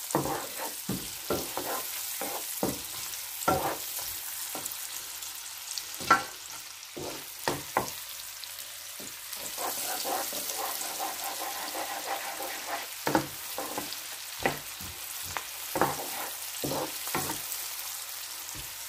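Chopped onion sizzling in hot oil in a non-stick wok, stirred with a wooden spoon that scrapes and knocks against the pan at irregular intervals. The onion is being sautéed before the garlic goes in, since garlic burns quickly.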